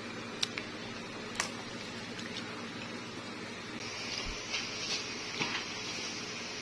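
Steady low room hum with two sharp light clicks about half a second and a second and a half in, as of a plastic fork against a paperboard fries box. From about four seconds in, a faint hiss with a few soft handling ticks.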